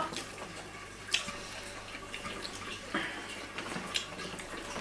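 People chewing fried chicken: scattered small wet clicks and smacks, with a few sharper ticks spread through.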